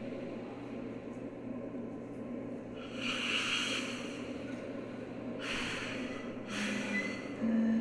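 Three breathy rushes of air over a low steady drone, with a brief low tone near the end: air and breath noises from a live experimental sound-art performance.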